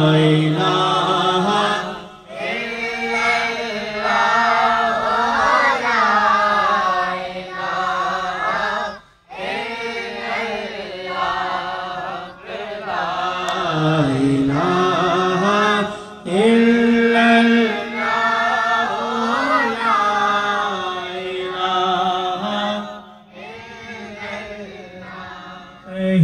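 A man singing a naat, an Urdu devotional poem in praise of the Prophet, unaccompanied, in long wavering phrases with short breaks for breath between them.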